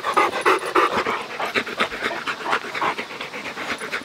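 Rottweiler panting rapidly with its mouth open, a quick rhythmic run of breaths close up.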